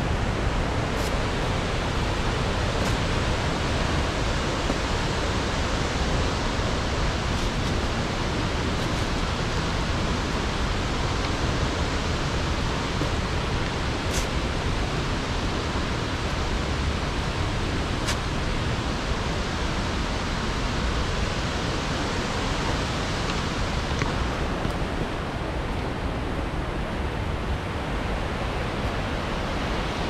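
Steady rushing of water from the Akiu Ōtaki waterfall, an even, loud wash of noise, with a few faint clicks.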